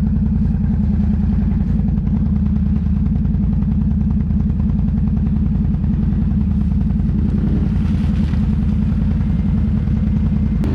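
Can-Am ATV's V-twin engine running steadily while the quad is ridden, a low, even engine note.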